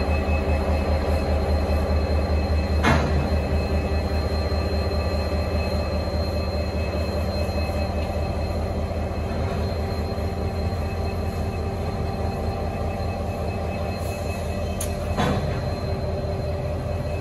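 Aurizon 2300 class diesel locomotive crawling across a street crossing. Its engine gives a steady low rumble, with thin steady high tones above it and two sharp clanks, one about three seconds in and one near the end.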